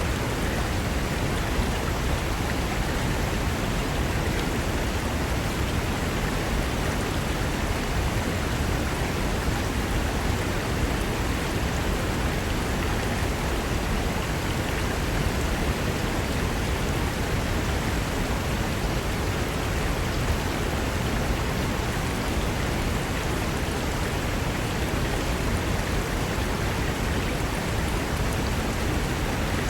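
Mountain river rushing over rocks, a steady, even wash of water noise.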